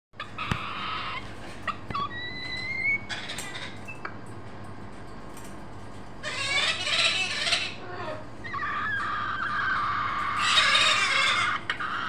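White cockatoo calling: scattered squawks and short whistles, then a loud harsh screech about six to seven seconds in, and long, loud calls through the last few seconds.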